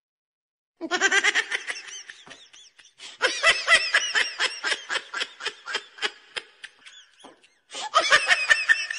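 A person laughing in quick repeated pulses: one long bout of several seconds, a brief pause, then a second bout near the end.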